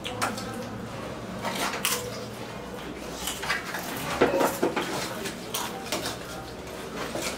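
Potato chips being bitten and crunched straight from bowls, with irregular crisp crackles and occasional light clinks of the bowls.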